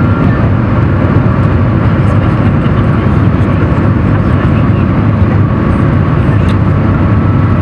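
Steady, loud low rumble inside the cabin of the Shanghai Transrapid maglev train travelling at about 430 km/h, its top speed.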